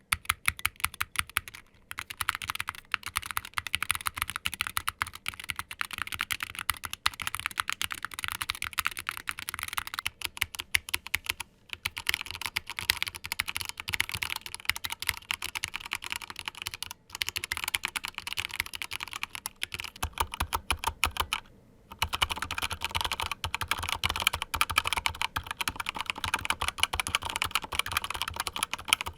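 Fast, continuous typing on three compact mechanical gaming keyboards in turn: a SteelSeries Apex Pro Mini Wireless, a Corsair K70 Pro Mini Wireless, then a Razer BlackWidow V3 Mini HyperSpeed. It is a dense stream of key clacks with brief pauses between bursts, and the last keyboard has a deeper thud under the clicks.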